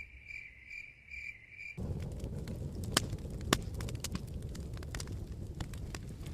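Cricket chirping, a high trill pulsing a few times a second, cuts off abruptly under two seconds in. A low rumble with irregular crackles and sharp pops follows.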